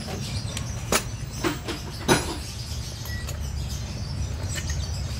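Hand tools and sockets clinking and knocking as they are handled in a tool bag: a few short sharp metal knocks about one to two seconds in, the loudest just after two seconds, with fainter ones later, over a steady low rumble.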